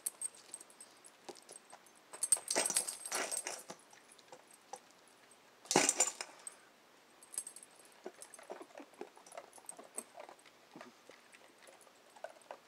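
Kibble clinking and rattling in a stainless steel dog bowl as a dog and hens eat from it. Two louder scuffling bursts cut in, one about two seconds in and a sharper one around six seconds, as kibble is scattered.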